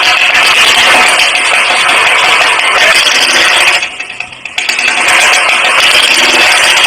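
A motor running loudly and steadily with a rattling edge, dropping off sharply for under a second about four seconds in before coming back.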